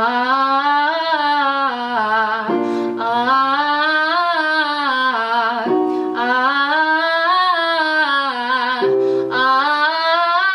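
A woman singing a vocal exercise in a strong chest voice, with no air in the tone. Four phrases each rise and fall back in pitch, and a short electronic keyboard note cues each one, about every three seconds.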